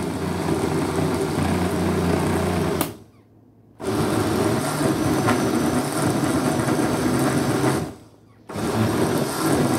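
Electric blender running in pulses, blending vegetables, fruit and molasses into a sauce. It cuts out about three seconds in, starts again under a second later, stops briefly once more near the end, then runs again.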